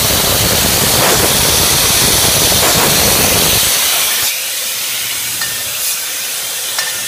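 Beer bottling line machinery running with a loud, steady hiss that drops away about four seconds in. A lighter hiss follows, with a few faint clicks near the end.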